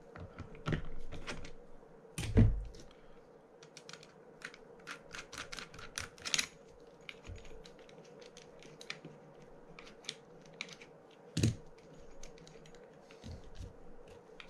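Irregular small metallic clicks and taps of screwdrivers working on a fishing reel's side plate while the main gear is freed, with a couple of louder knocks about two seconds in and near eleven seconds.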